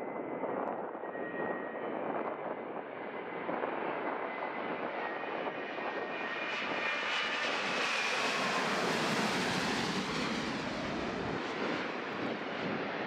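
Twin-engine widebody jetliner on approach with gear down, passing low overhead. The jet engine noise swells to its loudest about eight to ten seconds in, with whining engine tones that drop in pitch as it goes past.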